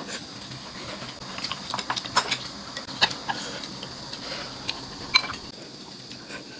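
Irregular light clinks and taps of utensils against dishes, a few sharper knocks among softer ones.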